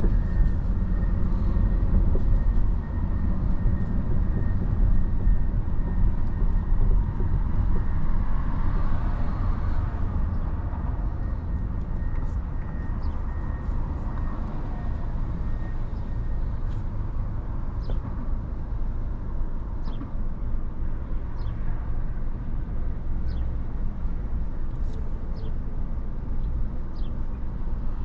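City traffic and tyre noise from a car driving through downtown streets: a steady low rumble, with a few faint, short, high squeaks in the second half.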